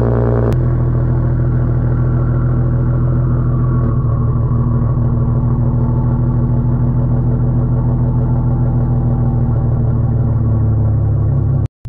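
Exhaust of a BMW 335i's single-turbo N54 inline-six idling steadily, heard close at the tailpipe, with a brief click about half a second in.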